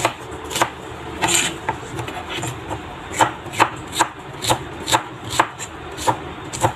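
Chef's knife dicing a peeled onion on a plastic cutting board: sharp knocks of the blade on the board, about two a second.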